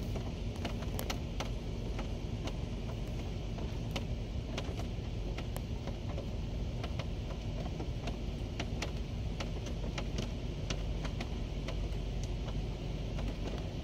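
Hail falling hard: a steady hiss thick with sharp, irregular clicks of hailstones striking hard ground, over a low rumble.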